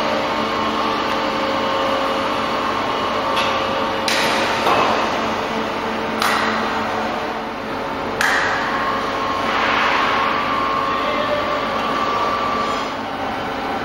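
Automatic pallet dispenser on a coil packing line: steady machinery hum with a few steady tones, broken from about four seconds in by three sharp knocks about two seconds apart, which fit wooden pallets knocking as they are gripped and lifted.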